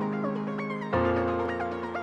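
Background music: sustained keyboard chords that change about a second in, with a quick melody running over them.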